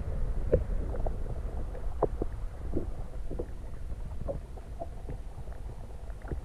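Muffled underwater sound picked up by a camera held beneath the surface: a steady low rumble of moving water with scattered small pops and knocks, several each second or so.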